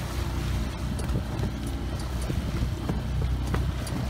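Wind rumbling steadily on the microphone over water rushing and splashing along the hull of a Hunter 22 sailboat sailing heeled through a light chop.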